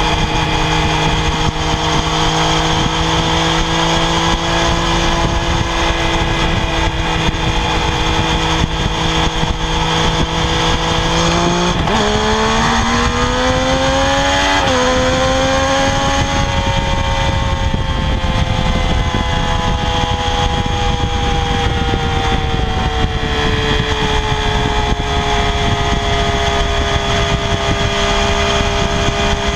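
Triumph Daytona 675R's 675 cc three-cylinder engine on its stock exhaust, held at high revs. About twelve seconds in it climbs in two quick steps to higher revs, then slowly eases back down and holds steady.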